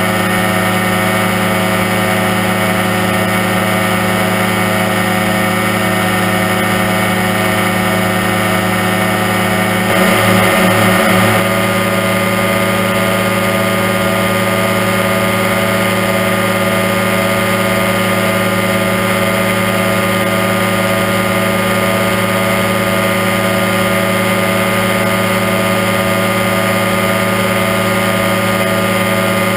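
Aerochute powered parachute's engine and propeller running steadily in cruise flight, with a brief wavering surge about a third of the way through.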